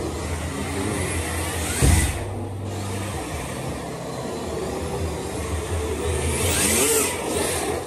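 Small electric RC car running on a track, its motor whining up and down in pitch as it speeds up and slows, loudest near the end. A sharp thump about two seconds in.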